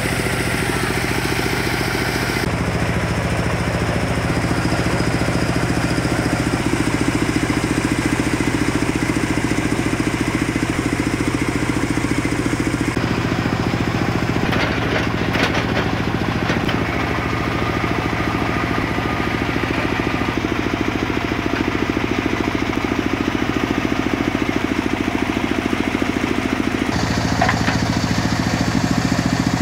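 Engine of a tractor-mounted water-well drilling rig running steadily while drill pipes are pulled, with a few brief metallic clanks around the middle and near the end.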